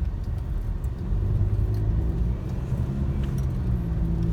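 Engine drone and road rumble inside a vehicle's cabin, driving over a bumpy dirt road, with a few light rattles and clicks.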